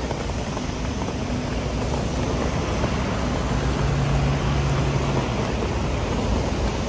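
Traffic on a rain-soaked city street in heavy rain, a steady wash of noise. About three and a half seconds in, a double-decker bus engine hums for a second or two.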